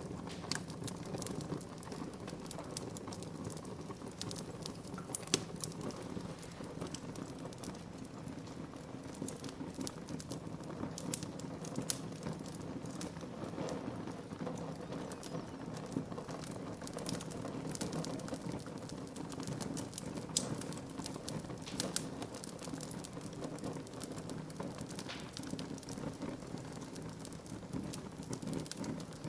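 Wood fire burning in a fireplace: a steady low rush with constant small crackles and snaps of the burning wood, and a few louder pops.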